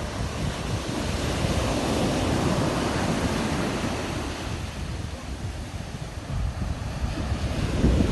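Strong wind buffeting the microphone over the rush of rough sea. It swells in the first few seconds, eases around the middle and builds again near the end.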